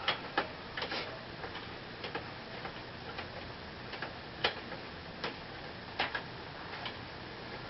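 Irregular light metal clicks, a few every couple of seconds, from a box-end wrench working a motorcycle fork's top clamp bolt loose in short turns.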